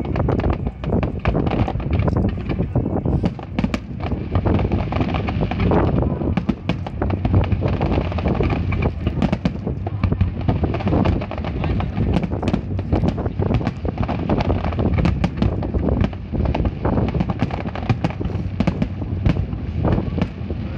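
Fireworks display going off continuously: a dense stream of sharp cracks and bangs over a steady low rumble of shell bursts.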